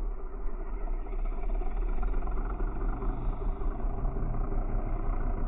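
Moki 250 radial engine of a large RC Corsair model running steadily in flight.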